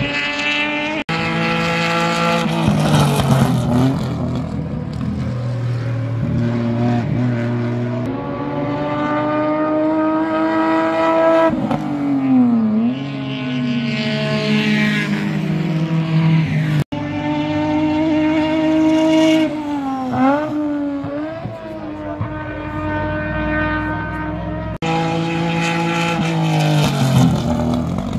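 Race car engines at high revs as cars pass on the circuit. The pitch climbs through each gear and drops at the shifts, and the sound changes abruptly several times as one pass gives way to another.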